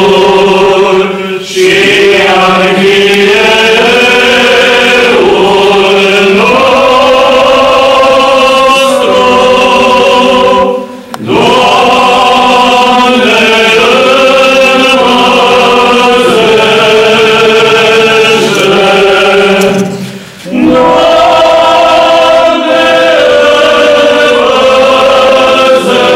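A group of voices singing a Byzantine-rite liturgical chant together, in long sustained phrases with short pauses for breath about every ten seconds.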